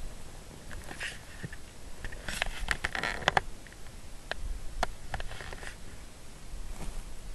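Clicks and rustling handling noise close to the microphone as the camera is jostled, in bursts, thickest a couple of seconds in and again near the end.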